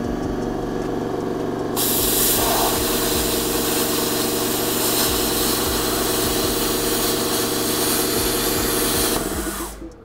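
Handheld plasma cutter cutting steel plate: a loud, steady hiss of the arc and air starts about two seconds in, over the hum of a running air compressor. Near the end both die away together as the overloaded power outlets feeding them cut out at their limit.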